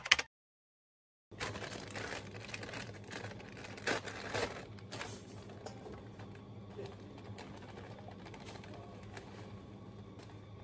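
About a second of dead silence, then quiet indoor room tone: a low steady hum with scattered faint clicks and light clatter, and a couple of slightly louder knocks about four seconds in.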